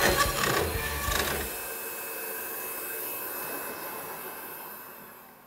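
CNC router spindle with a quarter-inch down-cut bit cutting parts out of a bamboo panel, with a dust-extraction vacuum running; a steady whirring hiss that fades away toward the end.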